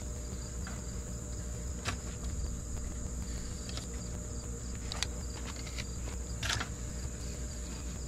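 Steady high-pitched insect chirring, as of crickets, over a low steady hum, with three short sharp clicks or knocks spread through.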